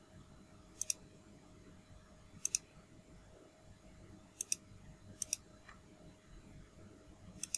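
Computer mouse button clicks: five sharp clicks a second or two apart, each a quick double tick, over faint steady room hum.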